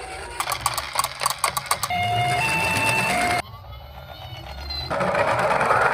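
Toy ambulance's electronic two-tone siren sounding in short hi-lo bursts. A rapid run of clicks and rattles comes before it. A loud noisy sound takes over near the end.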